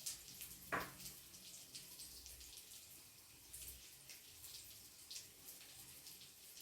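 Omelette with a chapati on top frying gently in a pan over low heat: a faint, irregular sizzling crackle of small ticks. One brief knock stands out just under a second in.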